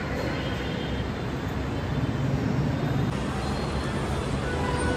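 Steady hum of road traffic.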